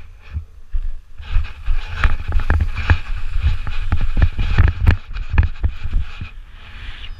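Running footsteps crunching on packed snow, about three a second, with wind buffeting the microphone: a paraglider pilot's launch run downhill. The steps stop about six seconds in as he lifts off, leaving a steadier rush of air.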